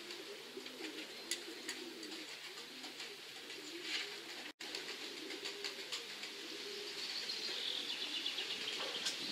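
Domestic racing pigeons cooing in a steady, wavering low warble. About four and a half seconds in the sound cuts out for an instant, and near the end a smaller bird chirps rapidly above the cooing.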